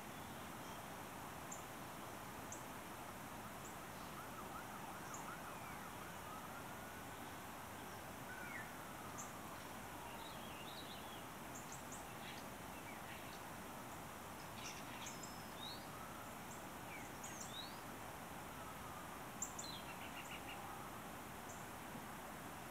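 Scattered short, high bird chirps from a dawn chorus over a steady background hum, with a distant siren slowly wailing up and down.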